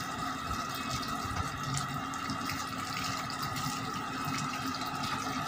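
Water running from a garden hose onto a motorcycle's front wheel and splashing onto a wet brick floor, with a steady hum underneath.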